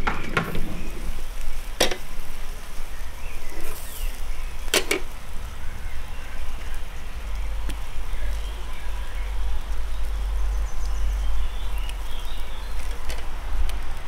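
Charcoal grill with quail on metal skewers: faint sizzling under a steady low rumble, with a few sharp clicks, the clearest about two and five seconds in.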